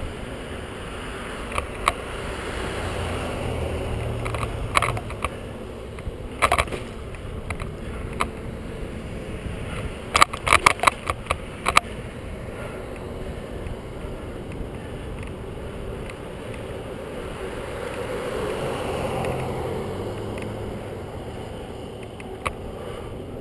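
Bicycle ride along a concrete sidewalk: a steady rush of wind and tyre noise, with cars passing on the road alongside, swelling twice. Sharp clicks and rattles from the bike going over the pavement's cracks and joints, a quick cluster of them about ten seconds in.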